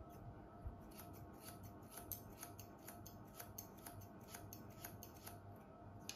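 Hair-cutting scissors snipping into a section of long hair in a quick, faint run of short snips, about five a second, then a single snip at the very end.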